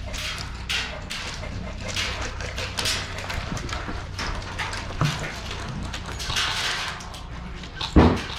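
Irregular scuffing and rustling of a player moving with gear, with one loud sharp knock near the end.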